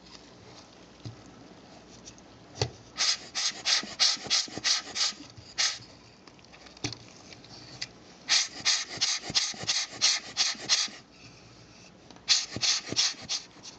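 Hand-squeezed rubber bulb air blower puffing air at a compact camera's lens unit to blow the dust off. It goes in three runs of quick puffs, about four or five a second.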